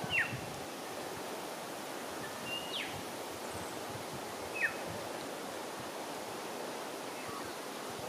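Breeze in the eucalyptus treetops, a steady rushing noise, with three short bird calls sliding downward in pitch, about two seconds apart.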